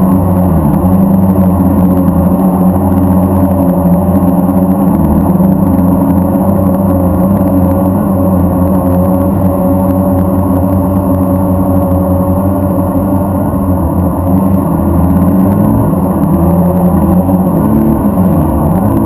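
Blade 350 QX3 quadcopter's motors and propellers running, a steady loud buzz as heard from its onboard camera, the pitch wavering briefly near the end as the motors change speed.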